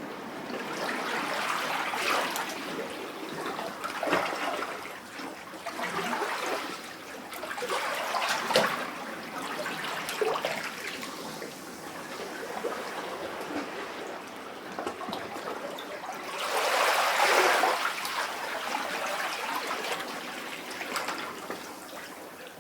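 Sea waves lapping in a rock cavity: water surging in and draining out with gurgles and small splashes, in swells every couple of seconds, the biggest surge about seventeen seconds in.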